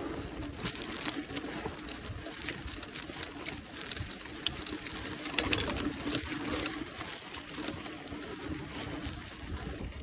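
Mountain bike rolling downhill: tyre noise on the road surface with scattered sharp clicks and rattles over a steady hum.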